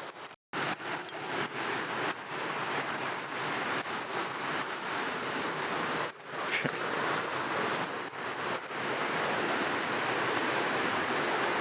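Steady rush of water, as from a waterfall or fast creek: an even hiss without any pitch. It cuts out for a moment about half a second in, dips briefly about six seconds in, and runs steadier and a little louder near the end.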